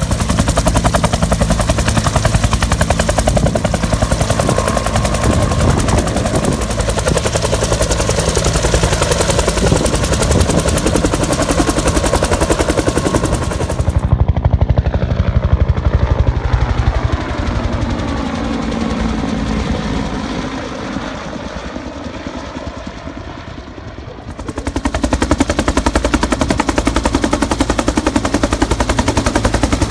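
UH-1H Huey helicopter with its two-bladed rotor beating out a loud, rapid blade slap. About halfway in the sharp top end drops away abruptly and the sound quiets, with tones sweeping down and up. Near the end the full loud slap comes back suddenly.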